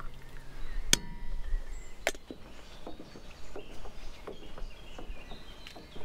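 Metal clink with a short ring about a second in, as the moka pot and enamel mug are handled, then a sharper knock a second later, followed by a run of lighter knocks.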